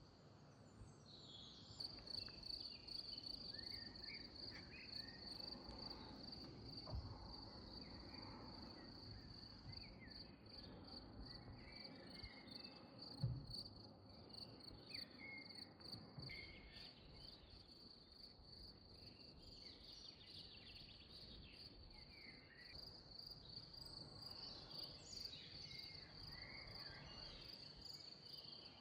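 A cricket singing a steady, rapidly pulsed high trill, with faint scattered chirps below it and a soft thump about thirteen seconds in.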